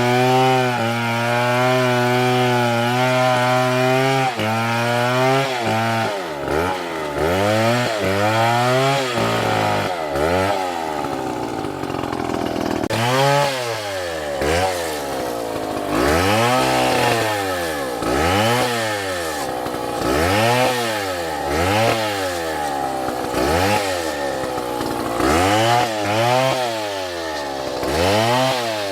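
Two-stroke Stihl chainsaw engine held at high revs for about five seconds, then revved up and let back down over and over, roughly once a second.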